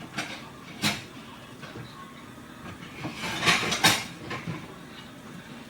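Kitchenware clattering: a couple of sharp knocks, then about three seconds in a rattling clatter ending in another sharp knock.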